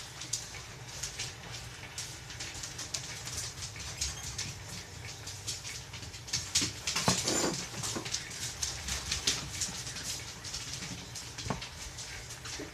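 Soft, irregular clicks and rustles of fingers handling and stretching raw crescent roll dough in a cast iron skillet, close to the microphone, with a louder rustle about seven seconds in, over a steady low hum.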